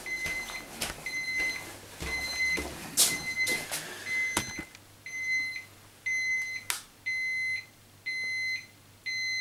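Handheld digital probe thermometer beeping: a single high-pitched electronic tone repeating about once a second, the beeps growing longer in the second half. A few sharp knocks, like footsteps or a door, sound in the first half.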